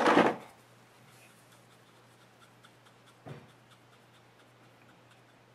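Faint scratching and rubbing of a makeup brush worked around in a pressed-powder compact, with one brief soft knock about three seconds in.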